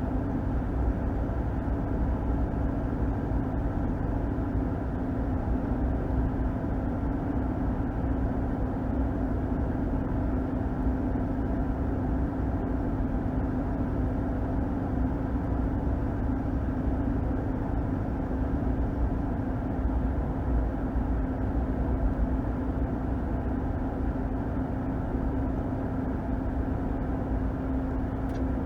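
2021 Ram 1500's 5.7 HEMI V8 pickup driving at a steady cruise: an even engine drone with one held hum over low tyre and road rumble, with no change in revs.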